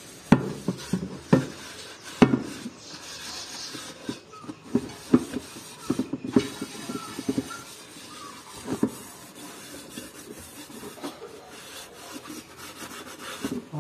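Sponge scrubbing a soap-lathered metal cooking pot: a continuous scratchy rubbing, broken by irregular knocks and clinks of the pot as it is handled.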